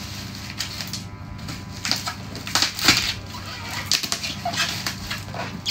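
Bubble wrap and plastic packaging crinkling and rustling as it is pulled off a cardboard box, in irregular crackles.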